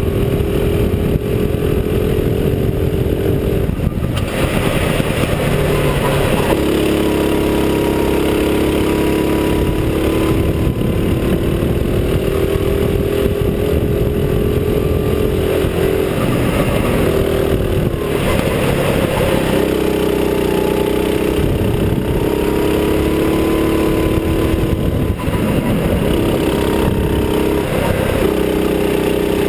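Go-kart's small engine running hard close under the driver, its pitch dropping briefly several times as the throttle is eased and then climbing back up.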